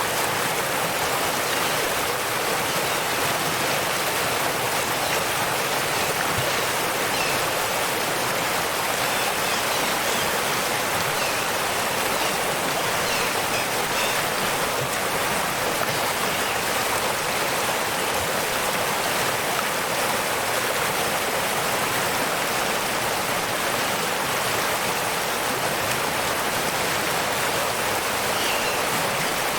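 Waterfall: water falling and rushing steadily, an even hiss that does not change in level.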